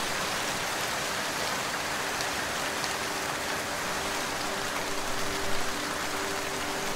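Steady rain falling: a dense, even hiss with a few scattered drop ticks. About halfway through, soft sustained low tones of a music pad come in underneath.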